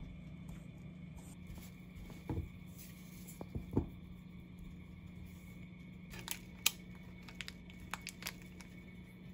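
Baking handling sounds: a silicone spatula working cookie dough in a stainless steel bowl with a few dull knocks in the first half, then parchment paper rustling and several sharp light clicks near the end, over a low steady hum.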